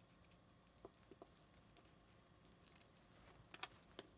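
Faint clicks and ticks of a small screwdriver and screw being worked into a camera body, a few scattered, with a louder pair about three and a half seconds in.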